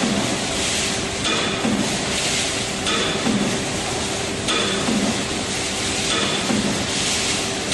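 YFS-1100A aluminium foil tray press running in production, stamping about once every one and a half seconds over a steady machine hum. Each stroke is followed by about a second of hiss.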